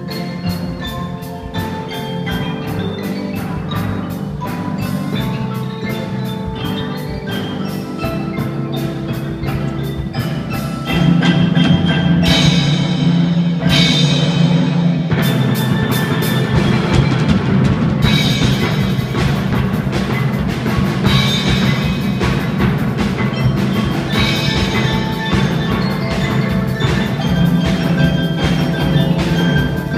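Youth band playing live music on mallet percussion and drums, with many quick struck notes over sustained tones. The music gets louder about eleven seconds in.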